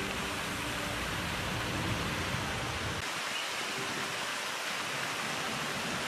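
Lake spray fountains splashing, a steady hiss of falling water. The low rumble underneath drops away about halfway through.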